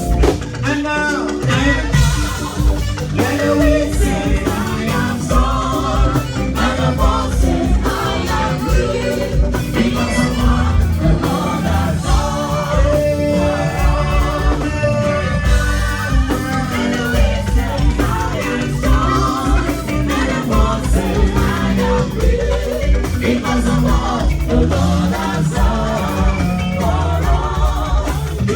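Gospel music with singing over a steady beat of drums and percussion, with guitar.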